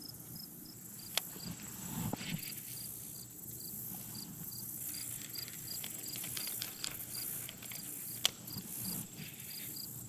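An insect chirping steadily, about three short chirps a second. Two sharp clicks stand out, about a second in and again near the end.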